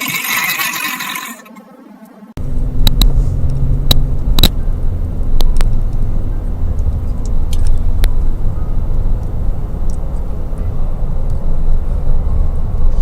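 A short burst of loud hiss, then, after a sudden cut, a steady low rumble with a few sharp clicks, like the inside of a moving car.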